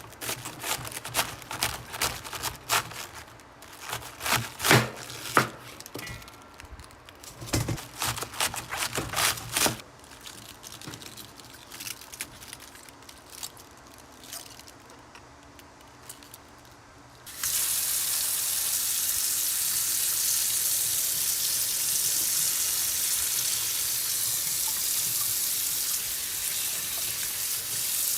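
Kitchen work: a quick run of clicks and knocks of utensils and food being handled, then a quieter stretch. About two-thirds of the way through, a steady hiss starts suddenly and holds.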